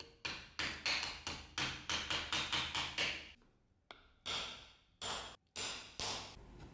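Hammer striking a steel punch held on a wooden handle blank resting on an anvil: a run of about ten sharp blows, roughly three a second, then after a short pause about five more, spaced further apart.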